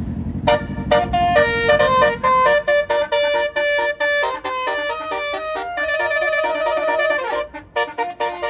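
Basuri telolet multi-tone bus horn playing a fast melody, the notes changing several times a second, with a falling pitch glide near the end and a brief break before it starts again. An engine rumble sits under the first couple of seconds.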